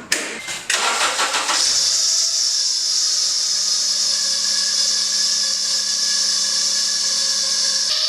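Acura TSX engine starting less than a second in, then running with a steady, high-pitched noise from the accessory drive belt: belt squeal, the reason the belt is being replaced.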